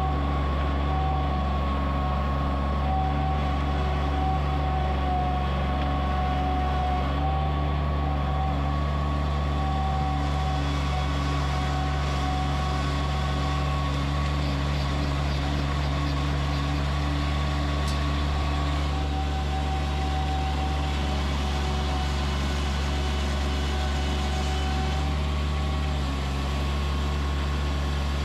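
Mini skid steer's engine running steadily, with a steady whine over it.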